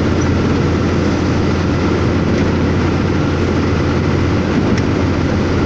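Steady drone of a truck's engine with tyre noise on a wet highway, heard inside the cab while cruising.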